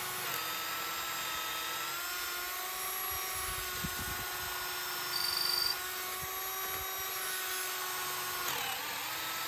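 Power drill running steadily as it bores a hole through a wooden gate post for a through-bolt gate hinge. It gets briefly louder with a thin squeal about five seconds in, and its pitch sags under load and recovers near the end.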